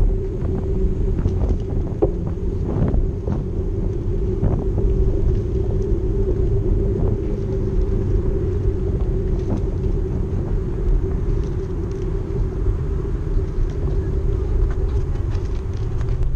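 Small boat's outboard motor running at a steady speed: a constant low rumble with a steady hum on top.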